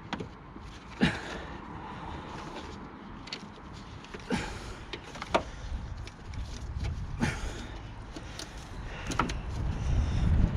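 A clamp being wound against a block of wood to push a dent out of a BMW E36's sheet-metal front wing: scattered sharp clicks and knocks, with a low rumble building near the end.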